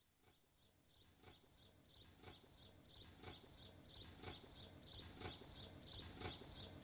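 A soft rhythmic pattern of clicks fading in from silence: about three light, high clicks a second with a heavier knock once a second, growing slowly louder.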